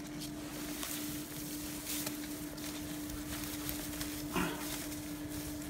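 Dry hay rustling faintly as gloved hands tuck it around the base of a pruned courgette plant, over a steady low hum. A short pitched call or voice sound comes about four seconds in.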